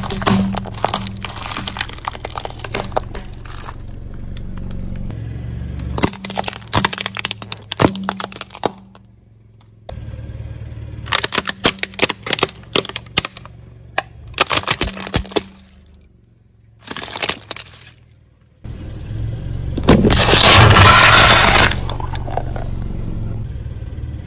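Objects crushed under a car tyre: clusters of sharp cracks and snaps in several short clips, with a loud, dense crunching stretch about twenty seconds in.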